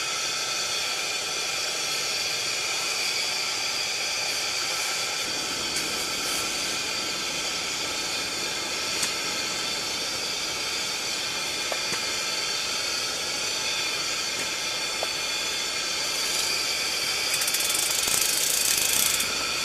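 Pressure lantern hissing steadily, with a brief louder rush of high hiss near the end.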